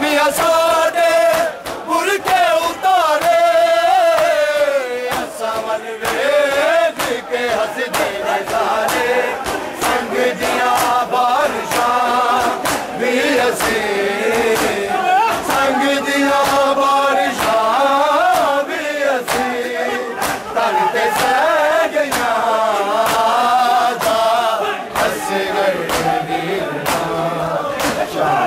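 A group of men chanting a noha, a Muharram lament, in unison, with regular sharp slaps of hand-on-chest matam beating in time.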